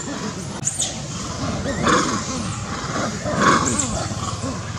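Macaques calling over one another, several at once, with two louder shrill cries about two seconds and three and a half seconds in.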